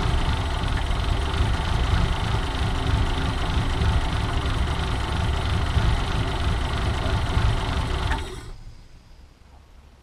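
1951 Mercury's flathead V8 idling very low and close to stalling, then switched off about eight seconds in, the engine sound dropping away within half a second.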